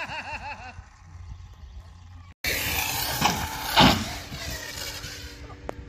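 Arrma Outcast 6S RC car's brushless electric motor revving in short wavering bursts on the roof, then, after a brief drop-out about two seconds in, running hard at full throttle as the car launches off the roof, loudest just before it is airborne.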